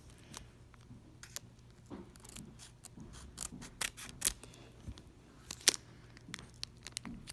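Foil Pokémon booster pack being handled and opened: a string of irregular sharp crinkles and snaps, a few much louder than the rest.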